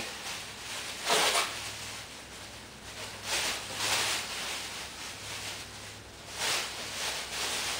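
Black polyethylene garbage bag rustling and crinkling as it is handled and held up, in a few short bursts.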